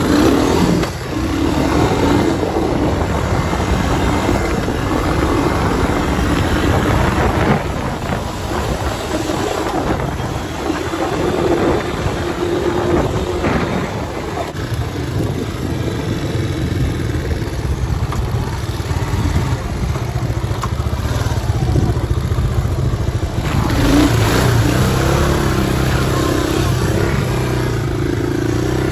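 Honda ATC 250SX three-wheeler's single-cylinder four-stroke engine running while being ridden over dirt, its pitch rising and falling with the throttle. It runs loudest in the last few seconds.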